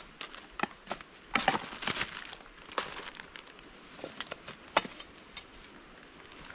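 Crinkling and rustling of something being handled, with scattered sharp clicks and taps, busiest about a second and a half in.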